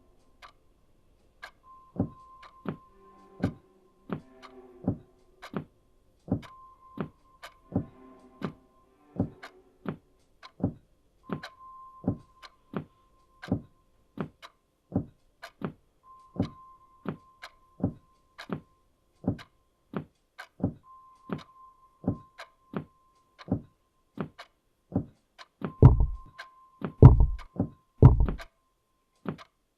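Sharp ticking about twice a second, with a steady high beeping tone that sounds for a couple of seconds at a time and then stops. Three heavy low thuds near the end.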